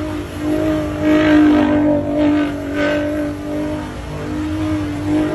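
Ford F-150 Raptor R's supercharged 5.2-litre V8 held at high revs as the truck drives hard on dirt, a steady engine note that swells and eases in loudness.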